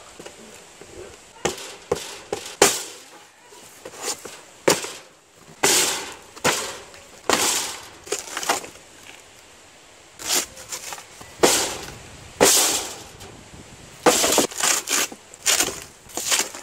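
Cardboard box being torn open by hand: packing tape and cardboard flaps ripping in a dozen or so short, irregular bursts.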